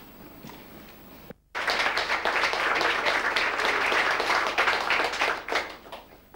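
Audience applause, starting abruptly after a brief gap in the sound about a second and a half in and dying away near the end.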